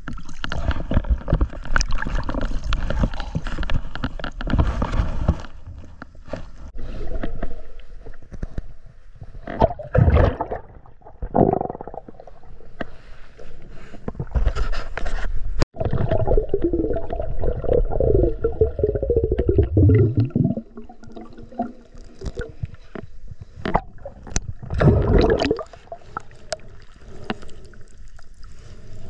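Water sloshing and gurgling around a camera held at and just below the surface, heard muffled, with repeated splashing surges. About halfway through a muffled wavering tone slides down in pitch for several seconds.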